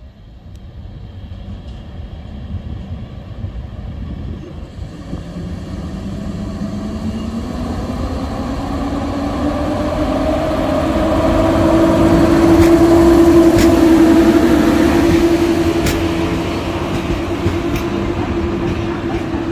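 EP07 electric locomotive pulling away with a train, its whine rising in pitch as it gathers speed and growing louder until it passes about two-thirds of the way through. Passenger carriages then roll by, with sharp clicks from the wheels over the rails.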